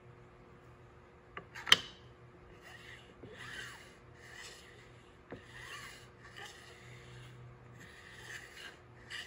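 Veritas miniature shooting plane set down on its shooting board with one sharp knock, then slid back and forth along the board's metal track in about six rubbing, hissing strokes.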